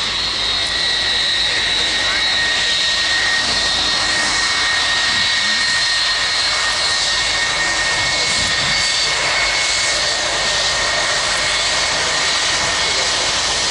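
Boeing 757-200's Rolls-Royce RB211 jet engines running as the airliner rolls along the runway after landing: a steady jet roar with a high, even whine, easing slightly near the end.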